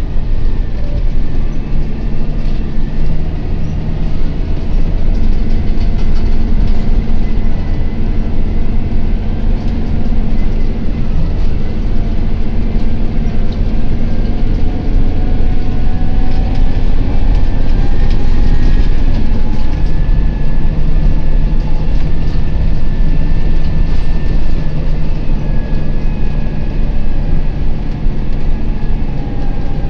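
Volvo B9TL double-decker bus's six-cylinder diesel engine and driveline running under way, heard from inside the upper deck: a loud, steady low drone over road rumble, with a whine that slowly rises and falls in pitch as the bus changes speed.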